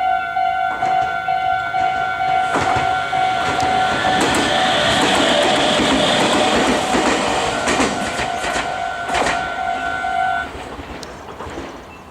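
A level-crossing warning bell rings in a steady repeating two-tone pattern while a Meitetsu 3100-series electric train passes, its wheels rumbling and clacking over rail joints. The bell stops near the end, once the train has cleared.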